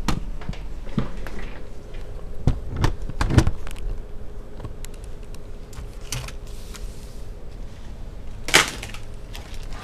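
Scattered plastic clicks and knocks as a laptop keyboard is lifted out of its deck and handled, with a cluster about three seconds in and the loudest knock near the end.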